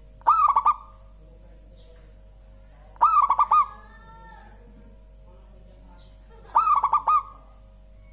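Zebra dove (perkutut) cooing: three short phrases of quick stuttering notes, each ending in a drawn coo, spaced about three and a half seconds apart.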